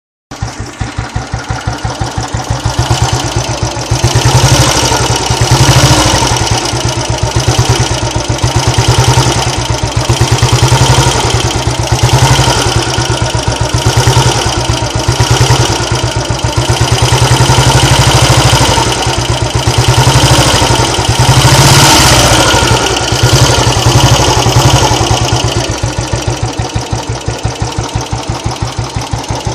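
Royal Enfield Bullet Electra 4S cast-iron single-cylinder engine running with a steady beat. The throttle is repeatedly opened and eased, swelling and dropping about every two seconds, before it settles back near idle toward the end. It carries a noise that the owner cannot identify.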